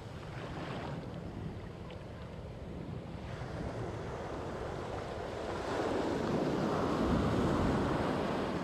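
Sea waves washing in with wind buffeting the microphone; the surf swells louder in the second half.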